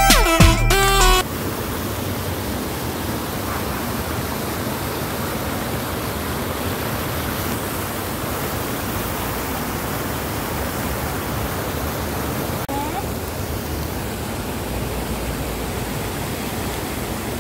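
Music cuts off about a second in, then the steady splashing of a fountain's rows of water jets falling into its pool.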